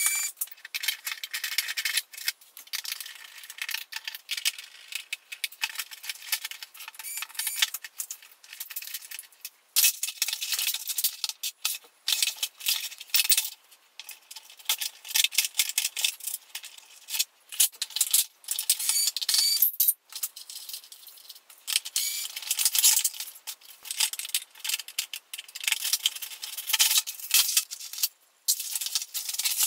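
Fast, dense clicking and rattling of screws, a screwdriver and hard plastic body panels as a plastic children's ride-on electric motorcycle is unscrewed and pulled apart.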